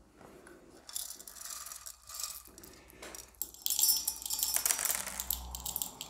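Coffee beans poured from a stainless steel jug into a metal grinder dosing cup on a scale: a rattle of beans clattering on metal, with scattered clinks at first and a dense run of them in the last couple of seconds.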